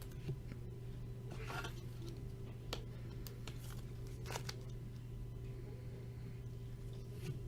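Trading cards and their packaging being handled: a few faint rustles and soft clicks over a steady low electrical hum.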